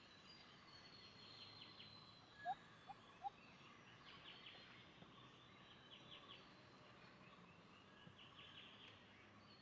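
Faint birdsong from several birds: rapid high trills and a thin high whistle repeating, with three short, louder chirps about two and a half to three seconds in.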